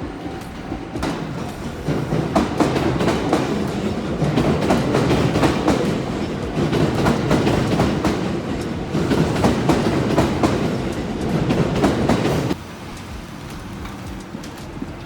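A train passing a railway level crossing, its wheels clattering over the rail joints for about ten seconds before the sound drops away suddenly near the end. The crossing's warning bell rings in a pulsing tone at the start, then is drowned out by the train.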